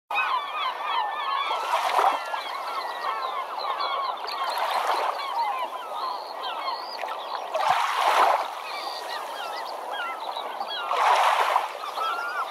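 A large flock of birds calling over one another, many short overlapping honks and chirps. A rush of noise swells and fades about every three seconds.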